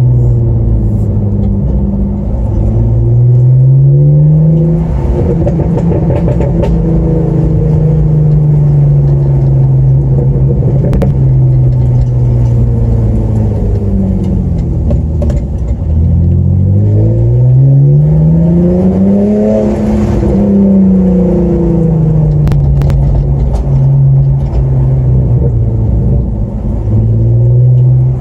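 BMW E46 330ci's 3.0-litre straight-six with the rear silencer removed, heard from inside the cabin on the move. The engine note climbs and falls as the car accelerates and eases off, with a short climb a few seconds in and a longer, stronger one about two-thirds of the way through, then drops back.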